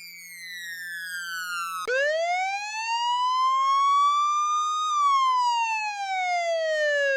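Synthetic siren wail with a buzzy tone. One falling sweep is followed, about two seconds in, by a new wail that rises slowly for about three seconds and then falls again.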